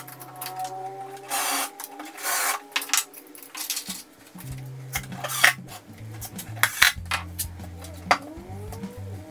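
Light clicks and clatter of tools, small hardware and pine boards being handled on a workbench, with a couple of brief scraping noises, over background music with a steady bass line.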